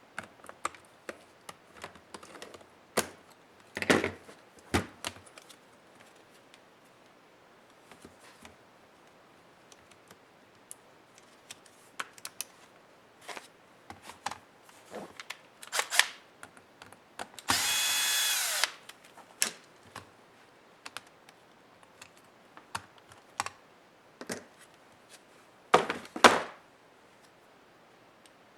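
Dell Inspiron 11 3180 laptop being taken apart: scattered clicks, taps and knocks of plastic case parts and small tools, with a small electric screwdriver running for about a second a little past the middle.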